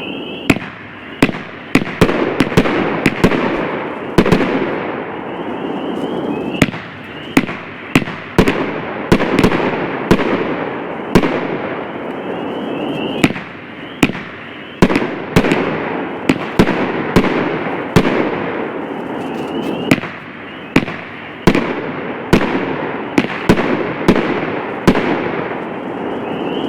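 A 500 g, 26-shot firework cake firing: a long, fast string of loud, sharp shell bursts, about one or two a second, over a steady hiss that runs between them.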